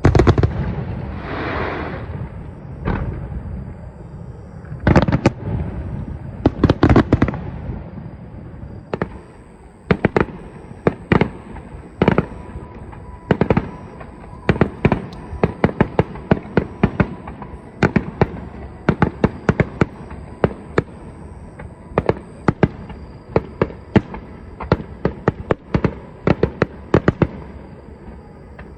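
Fireworks display: heavy shell bursts and booms in the first seven seconds, then from about nine seconds in a fast, continuous barrage of sharp bangs and crackles, several a second.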